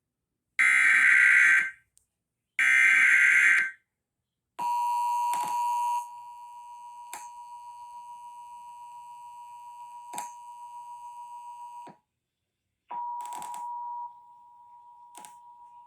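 Emergency Alert System Required Monthly Test: two buzzy SAME header data bursts about a second each, then the two-tone attention signal held steady for about seven seconds, dropping in level after a second or so with a few clicks. After a short break the attention tone sounds again near the end.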